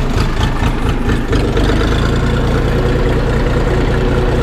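Minitractor engine running under load while pulling a two-furrow plough through the soil; about a second and a half in it picks up speed and then runs steadily.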